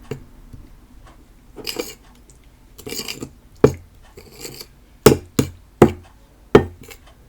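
A spoon stirring slime mix in a bowl: short scrapes, then several sharp knocks of the spoon against the bowl in the second half.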